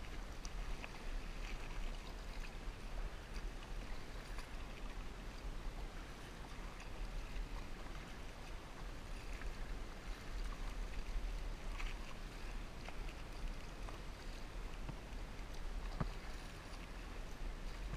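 Kayak paddling: the paddle blades dipping and pulling through the river water, and water washing along the plastic hull, over a steady low rumble.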